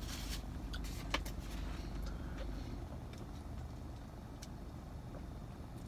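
A few crunches and small clicks of chewing a tuna sub with pickles in the first second or so, over a low steady hum inside a parked car. The clicks thin out after about two seconds, leaving the hum.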